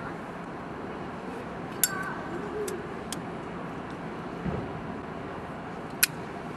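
A few sharp clicks of a cigarette lighter being worked, the loudest about two seconds in and again near the end, with a soft low thump midway, over steady street background noise.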